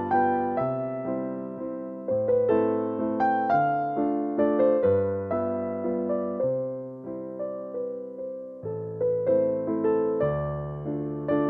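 Background music played on a piano-type keyboard: a gentle melody of notes that strike and fade over changing bass notes.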